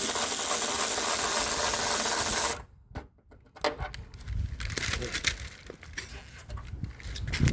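Power tool running steadily as it backs out a 10 mm bolt inside a car door, stopping abruptly about two and a half seconds in. Scattered light clicks and knocks of parts being handled follow.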